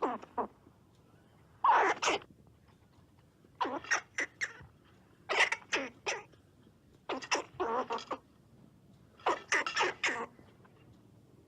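A squirrel giving harsh, barking chatter calls. They come in clusters of two to four short calls, about six clusters, roughly every two seconds.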